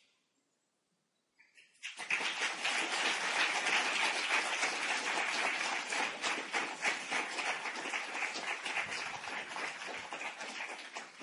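About two seconds of near silence, then a large audience clapping, a dense patter of many hands that holds steady and tapers off near the end.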